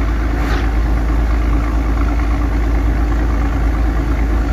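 Heavy truck's diesel engine running steadily while the truck drives along the highway, heard from inside the cab with a constant deep rumble of engine and road noise.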